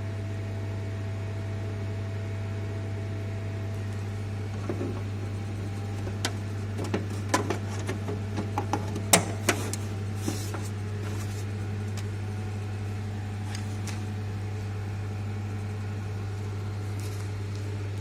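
Steady low electrical hum at twice the mains frequency from the plant's electrical equipment, with a string of sharp clicks and taps from about five to eleven seconds in.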